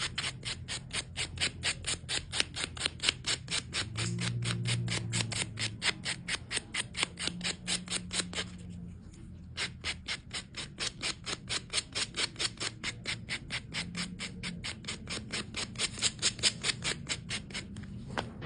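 Nail buffer rubbed quickly back and forth over a resin-glued fabric nail repair, about five even strokes a second, stopping briefly about nine seconds in and then carrying on.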